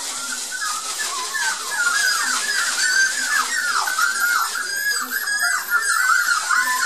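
A litter of 43-day-old Border Collie puppies whining and yelping together: a dense, overlapping chorus of high cries that bend up and down, several a second, growing louder about two seconds in. Shredded newspaper bedding rustles under their feet.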